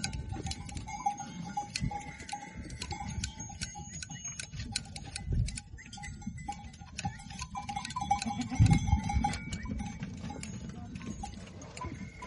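Shears clipping goat hair in quick, irregular snips, with goats bleating during the shearing.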